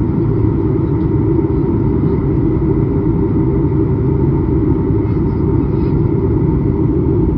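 Jet airliner cabin noise in flight: a steady, even drone of engines and airflow, with a faint steady high whine on top.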